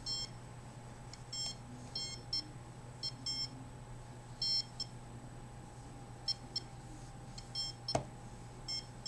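Handheld RF meter beeping in short, irregularly spaced bursts of high-pitched beeps, its alarm set off by the signal it reads, over a low steady hum, with one sharp click about eight seconds in.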